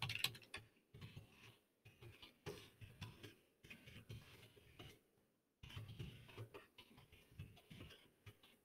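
Faint typing on a computer keyboard: an irregular run of soft key clicks, with a short pause a little past halfway.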